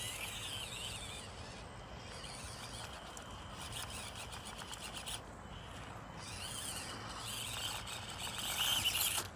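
Small brushed electric motor and geared drivetrain of an Axial SCX24 1/24-scale rock crawler whining as it crawls over rocks. The pitch rises and falls with the throttle, and the whine cuts out briefly a few times.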